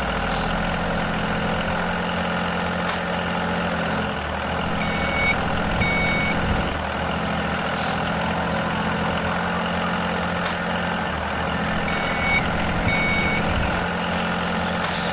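Truck engine running steadily, with a reversing beeper sounding two beeps twice, several seconds apart, and three short hisses.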